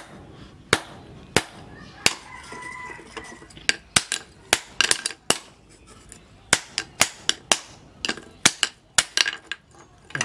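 Hand hammer striking red-hot steel on an anvil while a cleaver blade is forged: sharp metallic strikes, spaced out at first, then coming in quicker runs.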